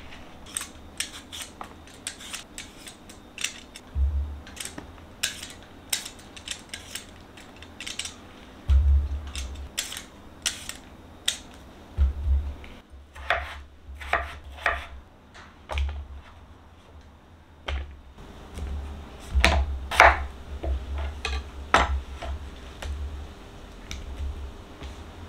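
Potatoes being peeled with a hand peeler and handled on a wooden cutting board: irregular sharp clicks, scrapes and knocks, with a few dull thuds.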